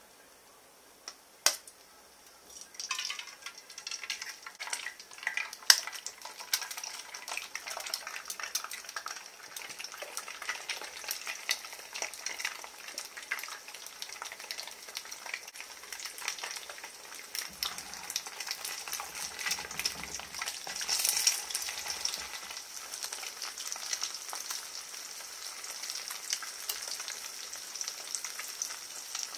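Eggs frying in hot oil in a frying pan, sizzling and crackling with many small pops from about three seconds in. A single sharp click comes just before the sizzling starts.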